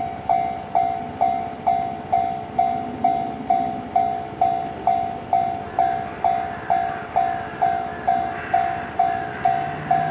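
Japanese railway level-crossing alarm bell ringing steadily, one clear tone struck about twice a second: the crossing is closed for a passing train.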